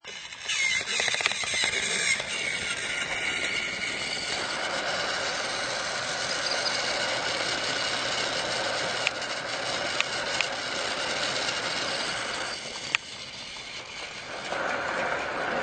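Motorized toy trains running on their track: a steady whirring and rattling of small motors and wheels, with a few sharp clicks in the second half.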